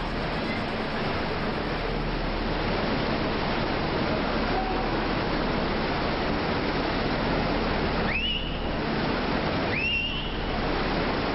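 Steady rushing noise of churning tsunami floodwater. Near the end, two short high-pitched tones rise and then hold, about two seconds apart.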